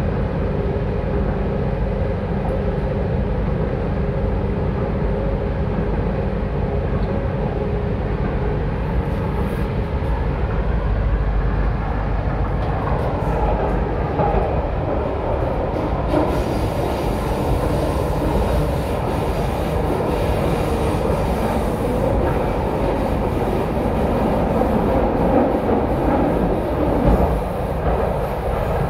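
MTR C-stock train running at speed, heard from inside the passenger car as a steady rumble of wheels on track and running gear. About halfway through, a brighter hiss joins in.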